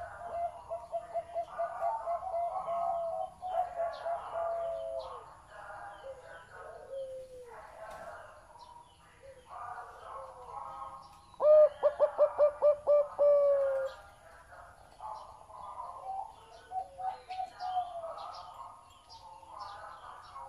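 Zebra dove cooing: repeated phrases of rapid staccato coos, each ending in a drawn-out falling note. The loudest phrase comes a little over halfway.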